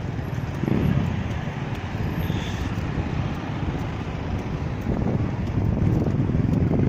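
Blackpool heritage tram running past close by on street track and moving away, a steady low rumble, with wind buffeting the microphone.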